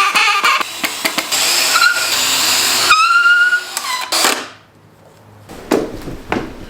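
Power drill driving long screws into 2x4 lumber, running in two long pulls with the motor's whine rising under load, then stopping about four and a half seconds in. A few knocks on wood follow near the end.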